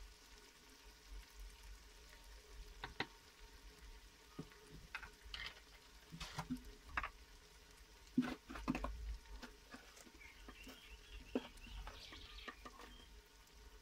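Onion-tomato masala with red chilli powder frying in oil in an aluminium pot: faint, irregular crackles and pops.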